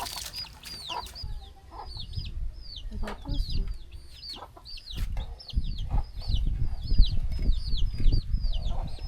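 Chicks peeping over and over: short high cheeps that fall in pitch, two or three a second. Under them a low rumble swells from about two seconds in, with a few sharp knocks.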